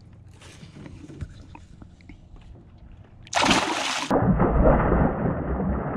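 A released bass kicking off from beside the boat: a sudden loud splash about three seconds in, then a few seconds of churning, sloshing water. Before it, only light lapping water.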